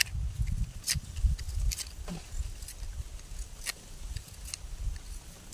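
Hand preparation of rujak sauce with palm sugar in a coconut shell: about five sharp clicks and scrapes over low, irregular thumps and handling noise, the thumps heavier in the first two seconds.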